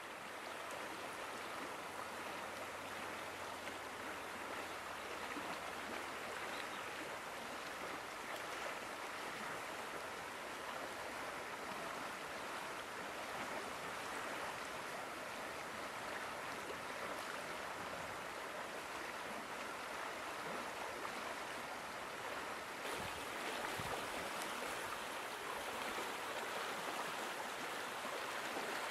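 Fast, swollen river rushing steadily over shallow rapids, with a few low knocks near the end.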